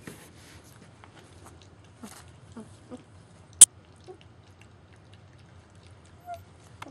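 German Shepherd puppies jostling at a metal bowl: soft clicks and rustles with a few short puppy grunts. One sharp, loud click a little past halfway stands out above the rest.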